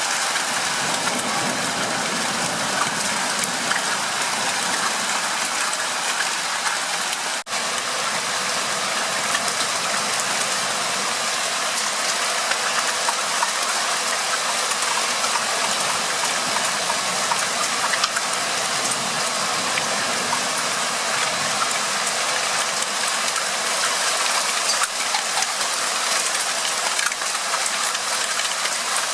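Steady rain falling: a dense, even hiss with faint scattered ticks, dropping out for an instant about seven seconds in.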